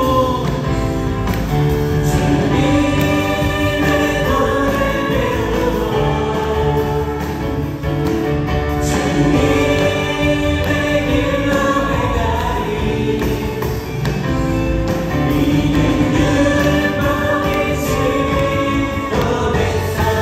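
Church praise band performing a worship song: a group of singers over keyboard, electric guitar, bass guitar and drums.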